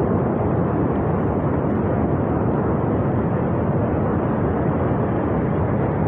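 Flash flood from a glacier burst rushing down a Himalayan river valley: a steady, loud rushing noise of debris-laden water that holds the same level throughout.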